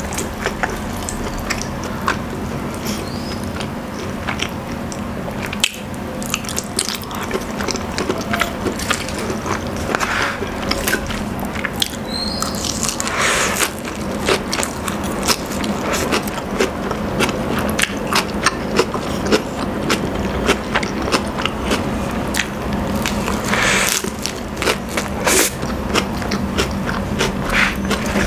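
Close-miked eating sounds: a whole rotisserie chicken pulled apart by hand, its meat and skin tearing with wet squishing and many small clicks, along with chewing.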